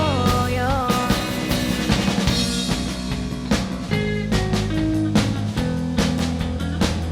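Rock band playing live, with drums, bass and electric guitar. A sung line ends about a second in, and the band carries on into an instrumental passage.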